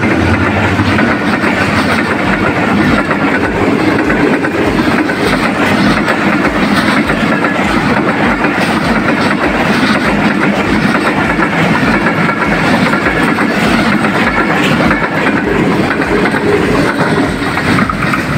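Long train of Pakistan Railways passenger coaches passing close by at speed on a non-stop run through the station, steel wheels running over the rails in a loud, steady rush that eases slightly as the tail draws away near the end.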